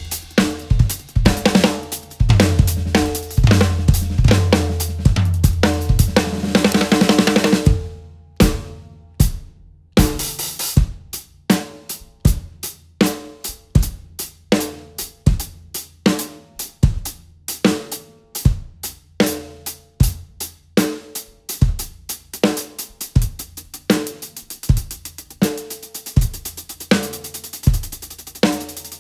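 DW drum kit with Meinl cymbals played solo: dense fills under crashing cymbals, a brief break about eight seconds in, then separate snare and tom strokes that pick up speed and grow denser toward the end.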